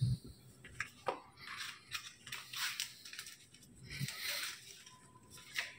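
Smartphone retail box being opened and its packaging handled: rustling and scraping of cardboard and plastic wrap, with a few light clicks.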